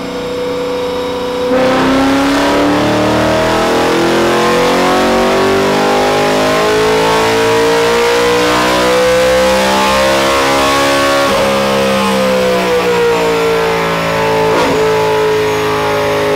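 BMW M3's V8 making a full-throttle pull on a chassis dyno: it opens up about a second and a half in, and its note climbs steadily for about nine seconds, then falls as it winds down, with two short sharp cracks along the way.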